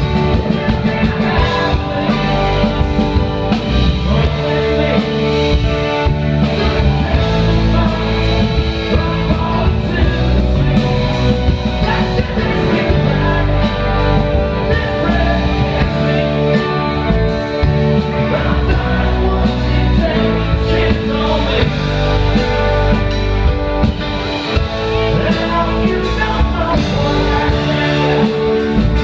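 Rock band playing live and loud on electric guitars, bass and drum kit, with a man singing lead.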